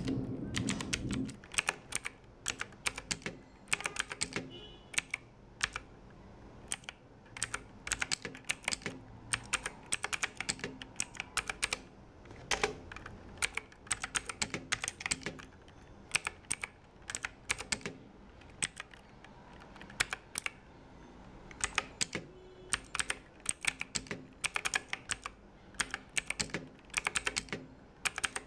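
Typing on a budget mechanical keyboard with clicky blue switches: fast, irregular runs of sharp key clicks broken by short pauses.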